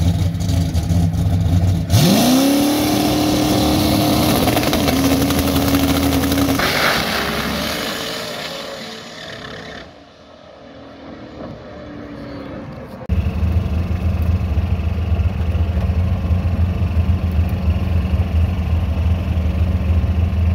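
Drag-racing Camaro's engine idling at the starting line, then launching about two seconds in: a sudden loud run whose pitch climbs fast and holds, with a shift partway, fading away as the car goes down the strip. Later a tow vehicle's engine drones steadily as the car is towed back.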